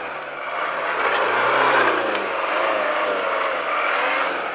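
Daihatsu 4x4's engine revving under load as it crawls over rocks, the revs rising to a peak a little under two seconds in, then easing back.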